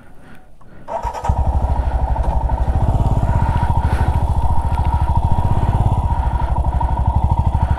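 Royal Enfield Himalayan's single-cylinder engine comes up loudly about a second in and runs with an even, rapid pulse as the motorcycle pulls away.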